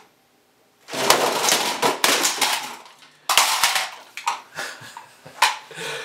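Steel bar clamps clattering and clanking against each other and the bench as they are handled. After a short quiet there is a dense jumble of metal clatter for about two seconds, another burst a little after that, then several single clanks.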